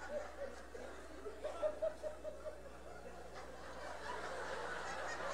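A person laughing in a run of short, high-pitched, stuttering pulses, then audience laughter swelling from about four seconds in.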